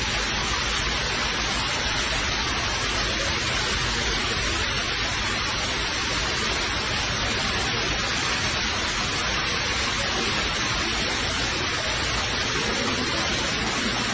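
Floodwater cascading down concrete subway stairs onto a flooded platform: a steady, even rushing with no let-up.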